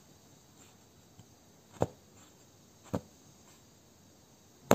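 Punch needle jabbing wool yarn through fabric stretched taut in an embroidery hoop: three sharp pops, with fainter ticks between.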